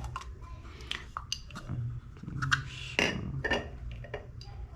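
Handling noise from a spray can of chain lube being turned over in the hands: several irregular light clicks and knocks with some rustling.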